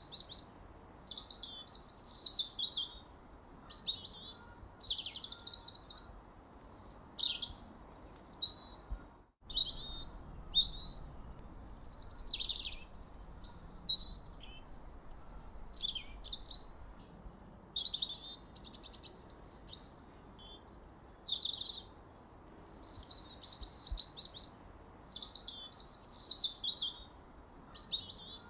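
Songbirds singing: a steady run of short, varied chirping and whistled phrases, one every second or two, over a faint background hiss. The sound cuts out for a split second about nine seconds in.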